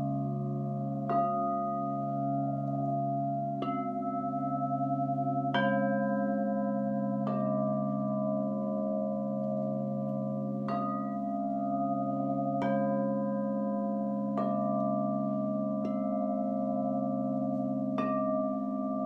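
Crystal singing bowls ringing together, struck with a mallet about every two seconds, nine strikes in all, each starting a fresh sustained tone over the others. The lowest tone pulses slowly as the overlapping notes beat against each other.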